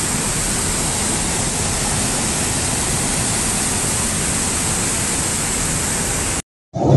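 Flash-flood torrent of muddy water pouring over walls, a loud, steady, even rush of water that cuts off suddenly about six seconds in.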